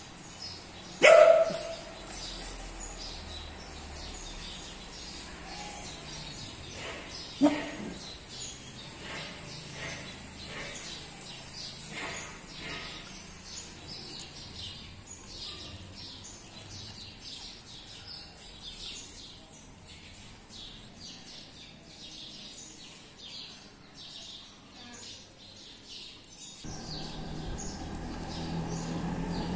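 Small birds chirping steadily in the background, with two short, sharp dog barks: a loud one about a second in and a lower one about seven seconds in.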